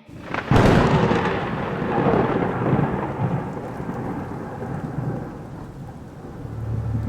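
Thunderclap with rain: a sudden sharp crack about half a second in, then a long rumble that slowly fades over several seconds under a steady hiss of rain. A low musical drone comes in near the end.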